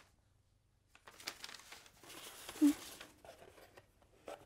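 Paper rustling and crinkling as a hat is unwrapped and lifted out of a cardboard box, starting after about a second of silence. A short low vocal murmur comes about halfway through, and there is a sharp click near the end.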